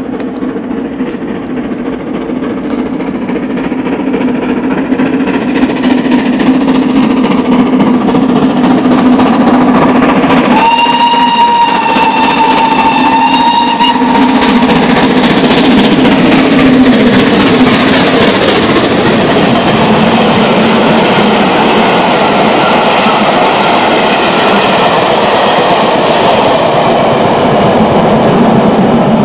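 GWR Castle Class 4-6-0 steam locomotive approaching at speed with a loaded train, growing louder. About ten seconds in it sounds its whistle, one steady note for about three seconds. Then the engine and coaches rush past with a loud, steady rumble of wheels.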